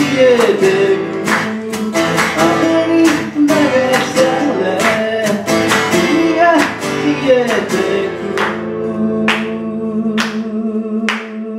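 Two acoustic guitars strummed with a man singing, played live. Near the end the singing drops out and the guitars strike a few last spaced chords that ring on.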